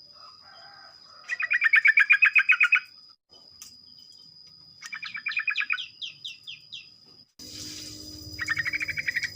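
Yellow-vented bulbuls (trucukan) singing in fast chattering bursts: three rapid rattling phrases, the second trailing off into a string of falling notes, over a steady high-pitched whine.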